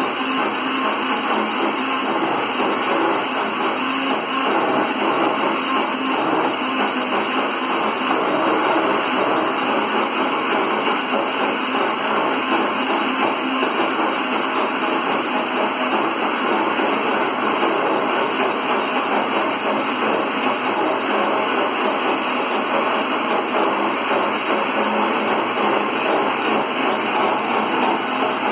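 Countertop electric blender running steadily, blending thick chocolate cake batter of milk, oil, eggs, flour, sugar and chocolate powder.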